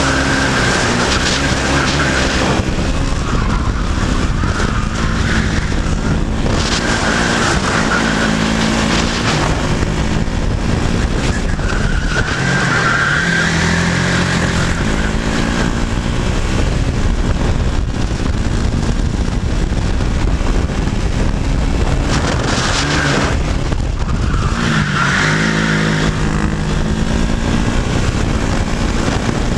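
KZ-class racing kart's 125cc two-stroke engine at race pace, heard from the driver's seat: the revs rise and fall through corners and gear changes, with a short drop about 23 seconds in before the pitch climbs again. Wind rushes over the microphone.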